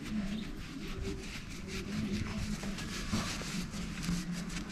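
Terry-cloth towel rubbing and rustling against small chilli peppers as they are wiped clean one by one, in a run of light, quick scratchy strokes.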